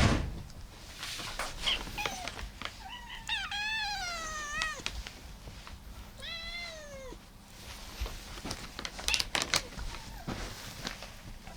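Domestic cats meowing: one long, wavering meow about three seconds in and a shorter meow that rises and falls about six seconds in, with a few brief calls earlier. Scattered sharp clicks follow near the end.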